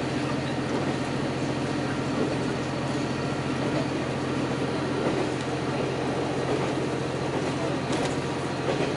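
Diesel railcar running steadily at speed, heard from inside the car: a constant engine and wheel-on-rail hum, with a couple of faint clicks near the end.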